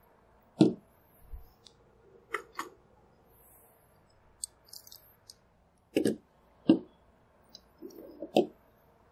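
Small parts being taken off a Gskyer 130EQ reflector telescope and set down on a plastic table: a series of irregular clicks and knocks a second or two apart, with a few light ticks in the middle.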